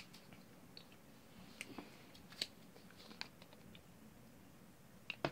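A small folded paper slip being unfolded and handled: a few faint, scattered crinkles and clicks, the sharpest near the end.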